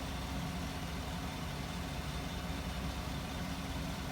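Pickup truck engine idling steadily with an even low hum.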